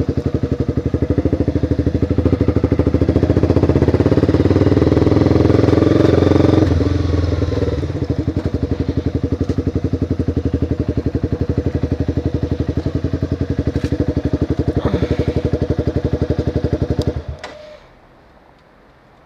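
Honda CBR sport motorcycle engine running at low road speed with a steady pulsing beat, pulling a little harder for a couple of seconds before easing back. About seventeen seconds in the engine is switched off and the sound cuts out abruptly, leaving only a faint low hum.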